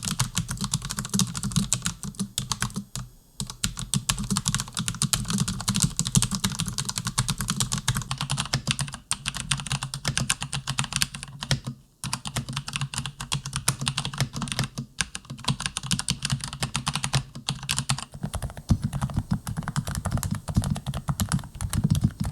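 Fast typing on mechanical keyboards, a dense run of key clacks, as keystroke sounds of different keyboards are compared. The typing breaks off briefly about 3, 9 and 12 seconds in.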